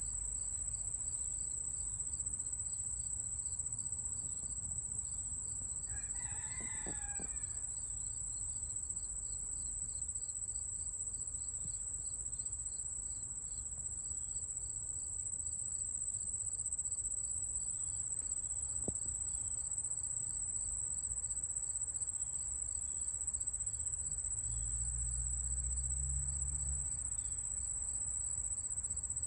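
Outdoor insect chorus: a steady high-pitched trill with a faster run of regular pulsing chirps beneath it. A rooster crows once, about six seconds in, and a brief low rumble comes near the end.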